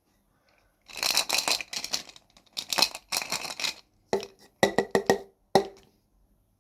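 Toy packaging being torn open in two rustling, crackling bursts, followed by about five sharp clicks or taps, as of hard plastic pieces knocking together.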